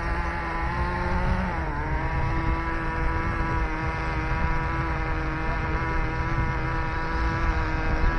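RC race car's motor running at a steady high pitch, with a brief dip in pitch about one and a half seconds in.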